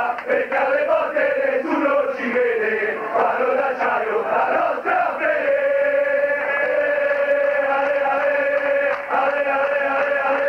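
A large crowd of football ultras chanting in unison in the stands. About five seconds in, the chant settles into one long held note.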